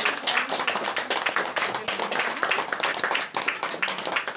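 A small group of people clapping their hands, a dense, continuous patter of claps.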